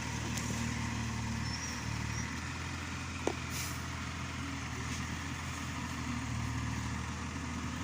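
Yanmar B37 mini excavator's diesel engine running steadily, with one sharp knock about three seconds in.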